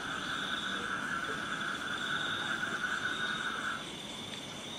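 Night chorus of frogs and insects: a steady trill with a higher, pulsing trill above it. The lower trill stops about four seconds in.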